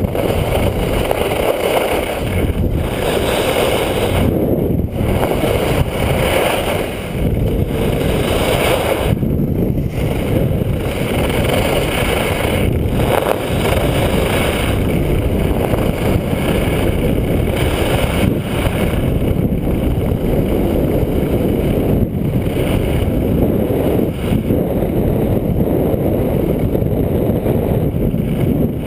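Wind rushing over an action camera's microphone during a fast downhill ski run, with the skis hissing and scraping on groomed snow, the higher scraping coming and going with the turns.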